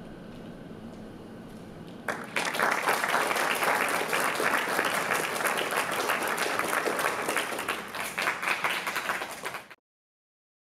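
Audience applauding, the clapping starting suddenly about two seconds in after a brief hush and cutting off abruptly near the end.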